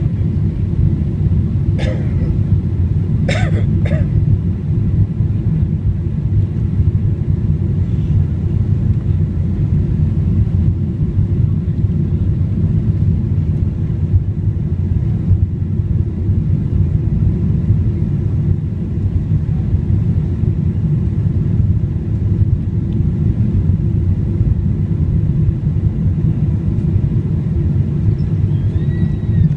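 Steady low rumble inside the cabin of a Boeing 777-300ER on final approach: its GE90 engines and the airflow over the airframe, heard at an even level throughout. A few brief sounds stand out about two and three to four seconds in.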